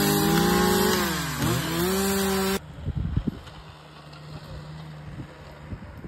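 Engine running at high revs, its pitch dropping about a second and a half in and climbing back as if under load. It cuts off abruptly about two and a half seconds in, leaving a few knocks and a faint low hum.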